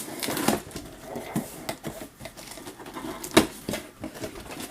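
Cardboard box being cut open with a knife and handled: irregular scraping and tapping, with one sharp knock about three and a half seconds in.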